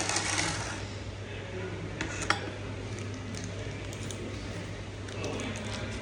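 Brief rustling, then a single sharp click about two seconds in, with a few light ticks near the end, over a steady low hum.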